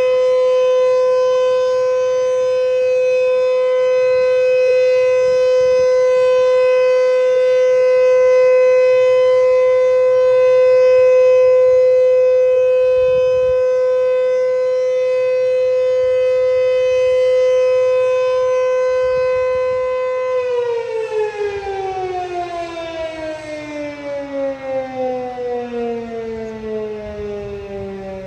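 Sentry 3V8HB outdoor warning siren sounding a steady alert tone. About 20 seconds in it is switched off and winds down, its pitch falling.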